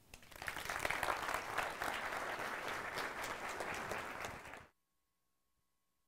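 Audience applauding, many hands clapping together. The clapping cuts off suddenly about four and a half seconds in.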